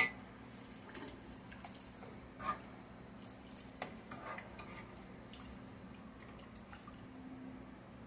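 Metal ladle knocking against a cooking pot and stirring through thick chili sauce: a sharp clink at the start, then a few softer knocks and wet sloshing, over a faint steady hum.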